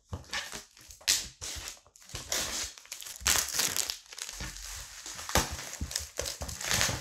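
Clear plastic wrapping crinkling and rustling in irregular bursts as it is pulled and peeled by hand off a skateboard deck.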